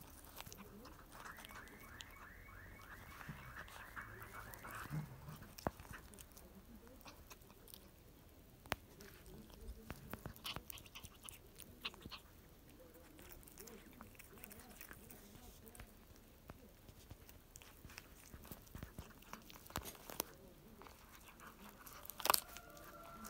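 A tabby cat chewing and tearing at a pigeon carcass, making wet crunching clicks as it bites through flesh, feathers and bone, with the sharpest crunch near the end. For a few seconds near the start, a rapid run of high repeating notes sounds in the background.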